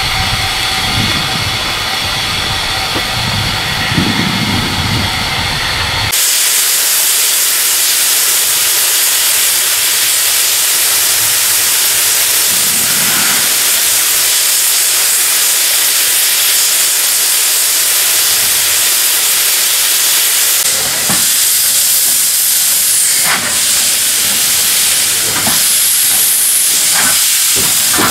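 Steam locomotive No. 340 'Frederick North', a 1945 Stephenson-built 0-6-0, hissing loudly with escaping steam. The hiss starts suddenly a few seconds in and holds steady. Near the end come a few short sharp beats as the engine begins to move.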